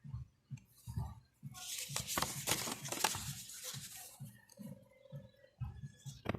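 Rustling and crinkling of packaging being handled, densest from about one and a half to four seconds in, with scattered light knocks.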